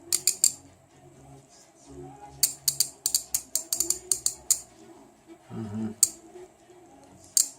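Ratchet handle from an Intertool ET-6020 socket set, with a 72-tooth mechanism, being worked back and forth by hand. The pawl clicks in short runs: a few clicks at the start, a fast run in the middle, then single clicks near the end. The fine-toothed ratchet clicks over with only about a centimetre of handle swing.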